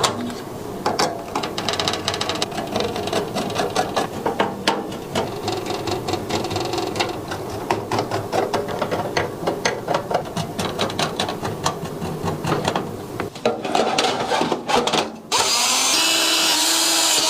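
Gaming PC parts being assembled: many small clicks and taps as components seat, with a small electric screwdriver whirring as it drives screws. Near the end, a loud, high-pitched whir lasts about two seconds.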